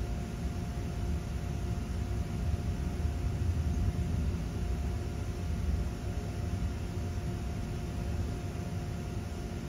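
A steady mechanical hum, with a constant tone, over a low, uneven rumble.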